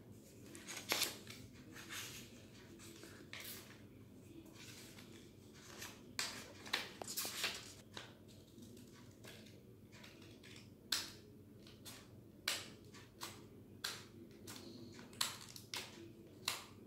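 Scissors cutting through green craft paper: short, sharp snips at uneven intervals, roughly one a second, with quiet gaps between.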